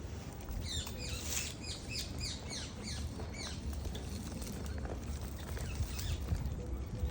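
A bird singing a run of quick, high notes, each sliding downward, several a second, for about three seconds, over a steady low rumble.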